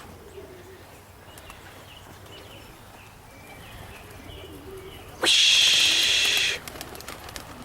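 White racing homer pigeons cooing softly, with a few faint chirps. About five seconds in, a loud hissing rush lasts about a second and a half.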